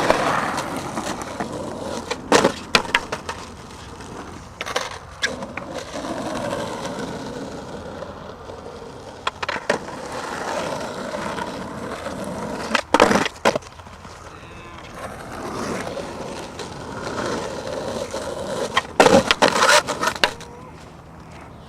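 Skateboard wheels rolling on concrete, swelling and fading, with sharp clacks of the board popping and landing several times and a burst of them near the end.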